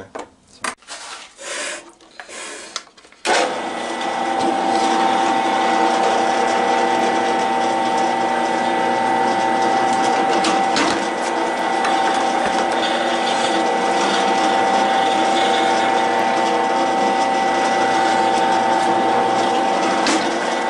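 Benchtop drill press switching on about three seconds in and running with a steady hum while holes are drilled through a Kydex sheet. A few brief knocks of handling come before it starts.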